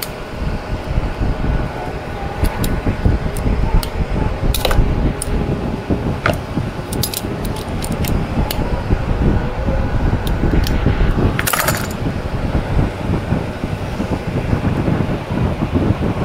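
Small metal brake parts and hand tools clinking and tapping against each other during scooter brake caliper work, with a brief metallic jingle about eleven seconds in, over a steady low hum.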